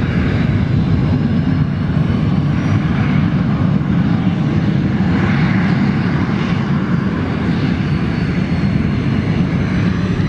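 Jet Provost T5's Armstrong Siddeley Viper turbojet running at taxi power as the aircraft rolls past: a loud, steady rumble with a faint high whine over it.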